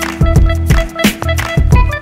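Instrumental background music with a driving drum beat, bass and pitched instruments.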